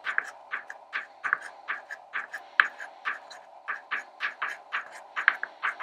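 Soft pastel stick scratching across paper in quick short strokes, about four a second, laying down a broken-colour texture. A faint steady hum runs underneath.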